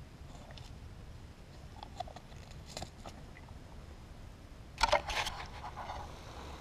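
Close handling noises: a few faint clicks, then a brief rustling clatter of small clicks and knocks about five seconds in.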